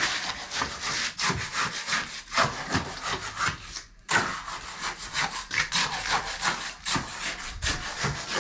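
Rhythmic rasping, scraping strokes, broken by a brief gap about four seconds in and then carrying on the same way.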